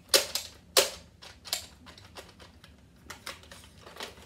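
Sharp plastic clicks and clacks from an X-Shot toy sniper blaster being worked by hand, as its break-action is forced to bend open for loading. Two loud clicks in the first second, then scattered fainter ones.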